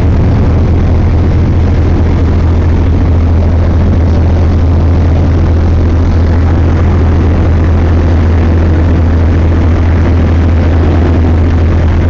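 A fishing boat's engine running steadily: a loud, constant low drone.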